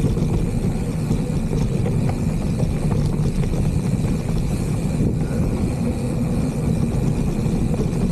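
Steady rumble of a mountain bike riding a dirt trail, from wind buffeting the camera microphone and the tyres rolling over the ground, with a few small rattles and clicks.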